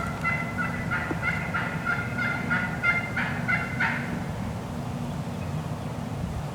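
Wild turkey calling: a rapid series of short, pitched notes that stops about four seconds in.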